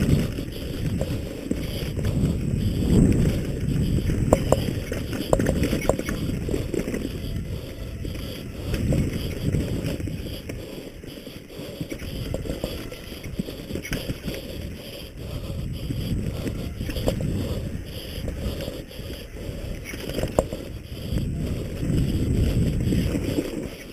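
Wind rumbling and buffeting the microphone as a bike rides fast over rough ground, with irregular clattering knocks and rattles from the bike.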